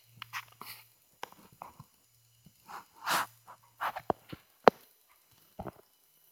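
Handling noise from the recording device being moved: scattered clicks, rubs and knocks, with a low hum that comes and goes during the first four seconds.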